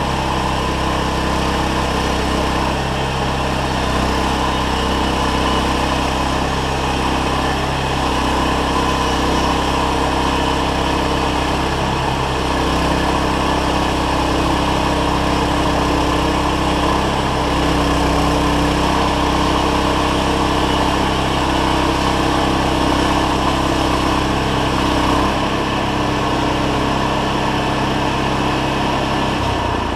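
Small gasoline engine of a Harbor Freight band sawmill running steadily at high throttle, its pitch shifting slightly a few times.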